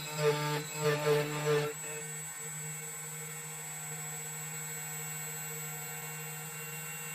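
2M2 Tank CNC key cutting machine running a cut, a steady hum with a constant high whine. Louder uneven sounds lie over it in the first two seconds or so.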